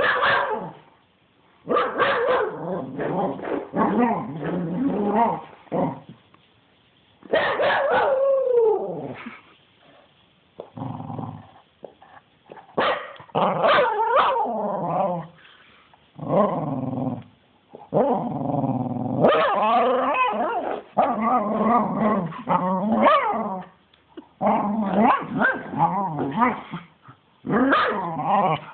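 Cocker spaniel growling and barking in excited play, in repeated bursts with short pauses between them, including one long falling howl-like whine about eight seconds in.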